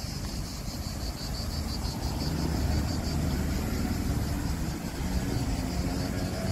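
A motor vehicle's engine running, a low rumble that grows louder from about two seconds in as it draws near.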